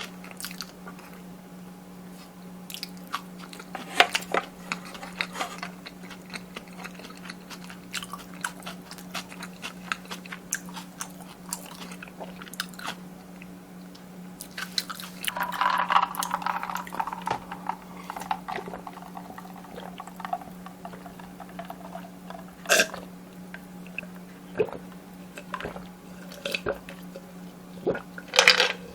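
Close-miked chewing of kimchi fried rice: a run of small wet smacks, clicks and light crunches, with a longer, noisier stretch about halfway through and a few sharper clicks later on.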